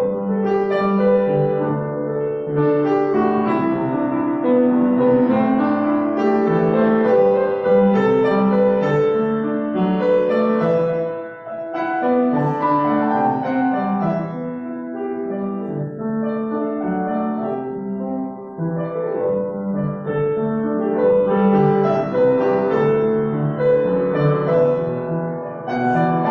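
Solo piano music, a melody over chords, with a brief dip in level about halfway through.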